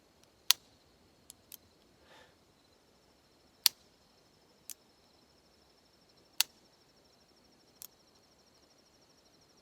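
Double-action trigger pulls on a Clerke First .22 revolver that fail to fire: three sharp hammer clicks about three seconds apart, with lighter clicks from the action between them. The hammer strike is too light to set off the .22 rimfire rounds, as the shooter believes.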